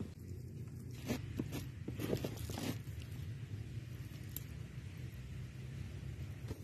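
A metal spoon and hands mashing and mixing shredded chicken and boiled potato in an aluminium foil tray: a few short, irregular scrapes and squishes against the foil, mostly in the first three seconds, over a steady low hum.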